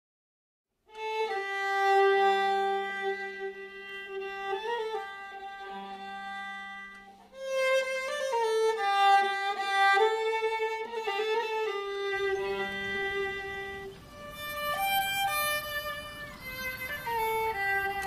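Violin playing a slow melody of long held notes with a few slides between them, over a steady low note. It begins after about a second of silence, and a faint low hiss joins in near the end.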